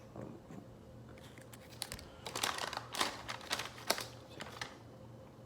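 Crinkling and crackling of small MRE plastic and paper packets being handled, in a cluster of sharp crackles from about two to four and a half seconds in.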